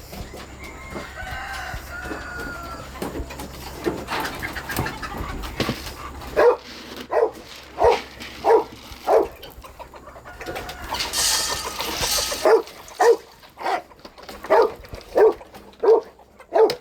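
A farm animal giving a steady series of short, loud calls, about one and a half a second, starting about six seconds in, after a stretch of fainter chirps.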